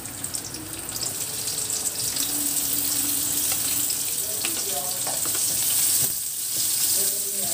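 Garlic and sliced onion frying in hot oil in a steel wok: a steady sizzle, with a metal spoon stirring against the pan.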